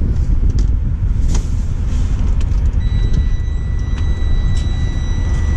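Semi truck's diesel engine idling with a steady low rumble, a few light ticks over it, and a thin steady high whine that comes in about three seconds in.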